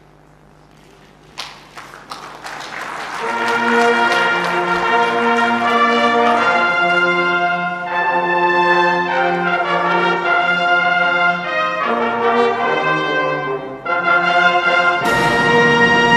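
Brass music playing slow held chords, starting about two seconds in just after a few sharp clicks, and swelling louder near the end.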